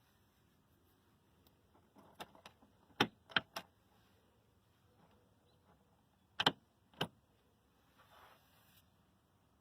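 A few sharp mechanical clicks: one group about two to three and a half seconds in, a second pair a few seconds later, then a brief faint hiss near the end.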